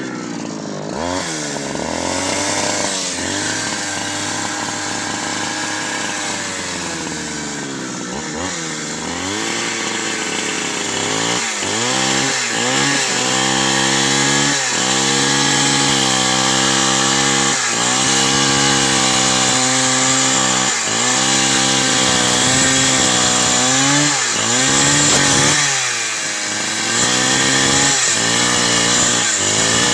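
Two-stroke chainsaw running hard, its engine note dropping and climbing back again and again as it is loaded, and more often in the second half.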